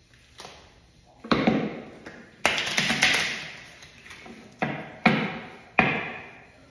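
Tarot cards being handled and knocked against a table: a run of about seven sharp taps and slaps, each fading within half a second.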